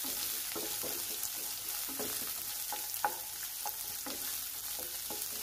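Chopped onion and green chilli sizzling in hot oil in a non-stick kadai, with a steady hiss and a wooden spatula scraping against the pan in short, irregular strokes as it stirs.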